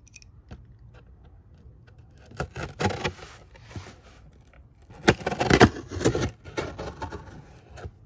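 A blade dragged along the packing-tape seam of a cardboard box, slitting the tape in rough, crackly scraping strokes. There are two main bursts, about two and a half and five seconds in, and the second is the louder.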